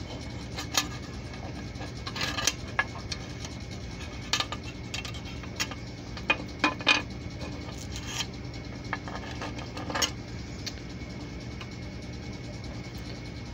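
Irregular light metallic clicks and scrapes as a metal burnisher and a small sterling silver plate knock against the metal surface of a hot plate while the plate is worked off its edge. The clicks stop a few seconds before the end, leaving a low steady hum.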